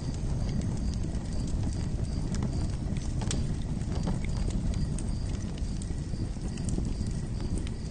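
Campfire burning: a steady low rumble of flames with scattered crackles and pops. A faint high chirp repeats at even intervals throughout.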